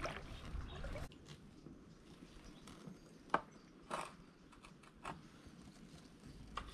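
Quiet paddling water at a kayak: a swish of water in the first second, then a few separate drips and plinks of water falling from the paddle.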